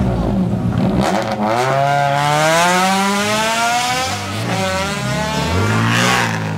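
Honda Civic Type-R rally car launching hard from the start line and pulling away at full throttle, its four-cylinder engine climbing in pitch through the revs. A gear change drops the pitch about four seconds in, then it climbs again.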